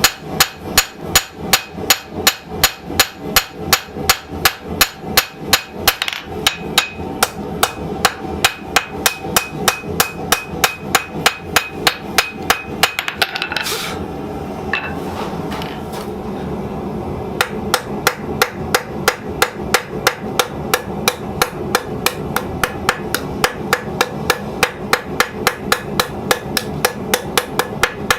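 Blacksmith's hammer striking steel on an anvil in a steady rhythm of ringing blows, about two to three a second, as the knife blade is hand-forged. The blows stop briefly about halfway through, with a short hiss, then resume at a quicker pace.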